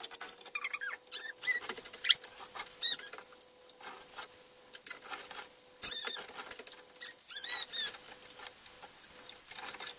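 Wooden spoon stirring melting butter, sugar and golden syrup in a saucepan, scraping against the pan with a series of short squeaks, the loudest about six and seven and a half seconds in, over a faint steady hum.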